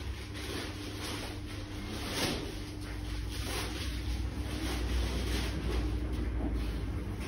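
Electrolux W4250S commercial front-loading washer in its main wash, its drum turning a wet double duvet: a steady low hum and rumble under repeated swishes and sloshes of the water-soaked load.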